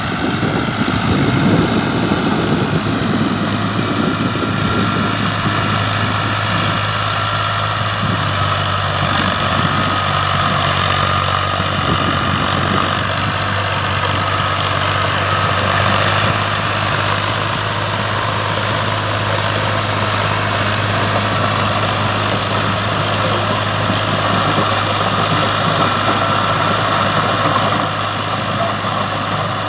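Al Ghazi 480 tractor's diesel engine running steadily under load as it drives a rotavator through dry soil.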